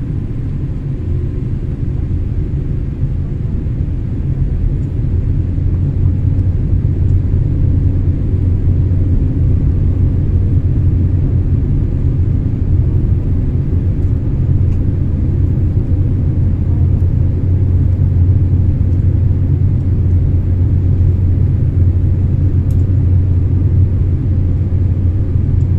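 Boeing 787-8 cabin noise on the descent: a steady low rumble of engines and airflow heard inside the cabin at a window seat, growing slightly louder a few seconds in and then holding steady.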